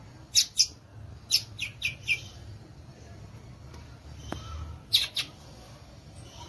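Violaceous euphonia (gaturamo-verdadeiro) giving short, sharp high chirps: a quick pair, then a run of four, then another pair about five seconds in.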